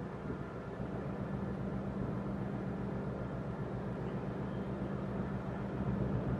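Steady low engine drone with a constant hum, under an even hiss of outdoor noise; nothing starts or stops.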